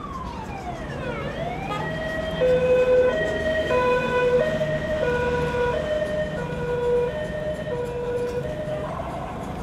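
Emergency vehicle siren, on the white Land Rover Defender with a roof beacon: a wail gliding down and back up in the first two seconds, then a two-tone hi-lo siren switching pitch about every two-thirds of a second, loudest as it passes and stopping near the end, over street traffic noise.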